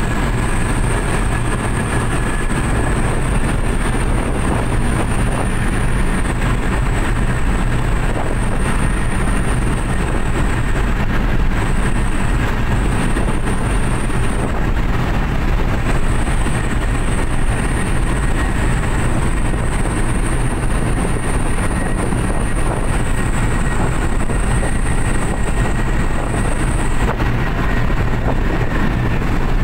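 Cabin noise of a Suzuki New Carry pickup, laden with about 800 kg, running at full speed on the highway: a steady engine drone with road and wind noise, plus a thin high whine that wavers and briefly drops out a few times.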